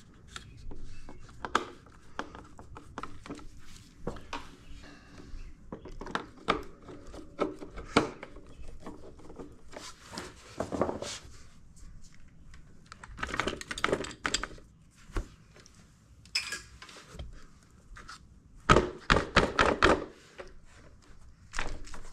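Screwdriver working screws out of a plastic scooter body, with scattered clicks and knocks of the tool, screws and plastic panel being handled, and a quick run of clicks about three-quarters of the way in.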